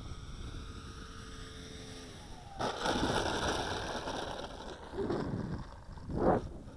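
Twin electric motors of a Durafly SkyMule RC plane giving a thin whine that falls in pitch about two seconds in as the throttle comes back. Then a sudden loud rushing noise cuts in and runs for about two seconds, followed by two shorter loud bursts near the end.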